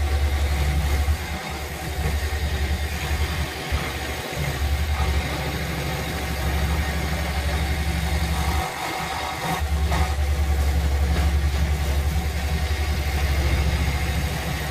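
Woodstar SD 16 scroll saw running with its blade cutting through a wooden board: a steady low hum and buzz from the reciprocating blade, dipping briefly about a second in and again past the middle.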